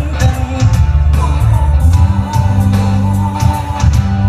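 Live pop-rock band playing loudly through a concert PA: a heavy bass line and drum hits with electric guitar, under a male lead vocal.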